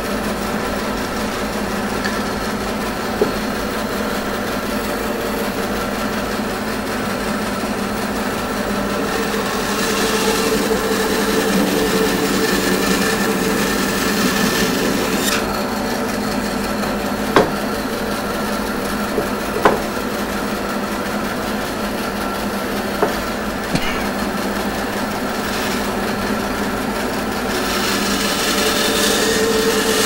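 Bandsaw running steadily, its blade cutting through a block of red ironbark for several seconds in the middle, with a few sharp knocks as wood is moved on the table.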